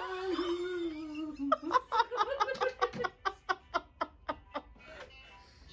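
A woman laughing: a long drawn-out vocal sound breaks, about one and a half seconds in, into a run of quick, even laughs, about four a second, that fade out near the end.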